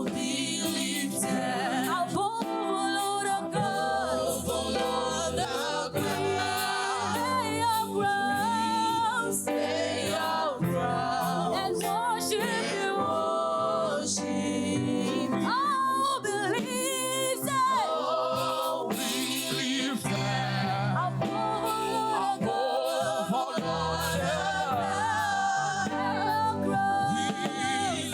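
Choir singing gospel praise and worship music, with vocal vibrato over a steady instrumental backing.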